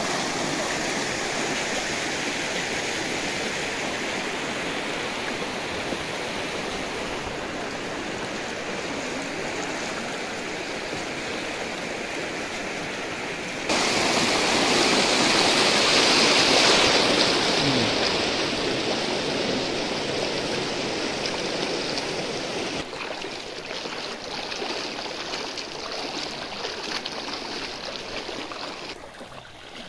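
Muddy floodwater rushing and churning over a street, a steady wash of water noise. It jumps louder about halfway through, close to the breaking white water, then eases and drops lower near the end.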